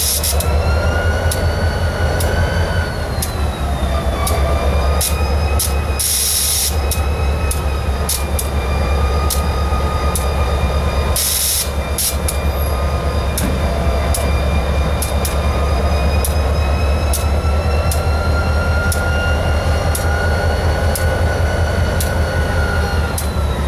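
Large diesel-electric road locomotive standing and idling: a steady low throb with a whine that drifts slowly up and down in pitch. Two short bursts of hiss come about six and eleven seconds in.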